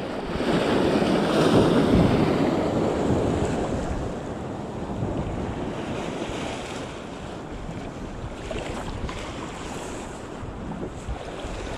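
Sea waves surging and breaking, with wind buffeting the microphone. The surf swells loudest about one to three seconds in, then settles to a steadier wash.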